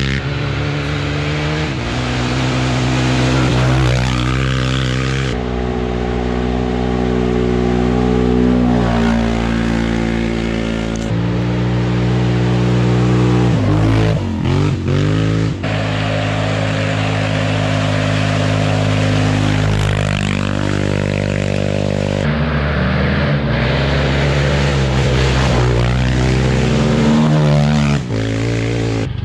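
Quad ATV engine running hard at race pace, its note rising and falling in steps with throttle and gear changes, with a quick drop and rise in revs about halfway through.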